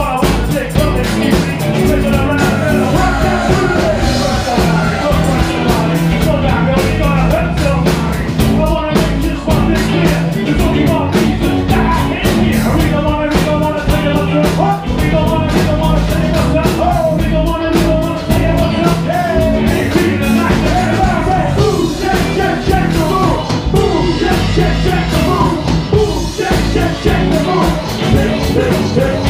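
Live rock band playing loud: a man singing into a microphone over drums and bass guitar.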